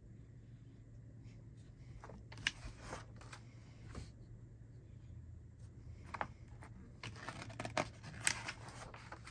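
Pages of a large paper instruction booklet being turned and pressed flat by hand: crisp rustles and flicks of paper, with a sharp crackle about two and a half seconds in and a longer run of rustling from about six seconds to near the end.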